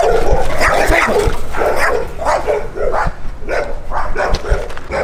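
A dog barking again and again, about two barks a second.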